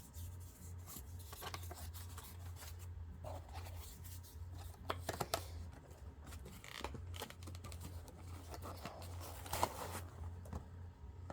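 Scattered light handling noises, with small clicks and rustles of packaging and parts being moved about, over a steady low hum.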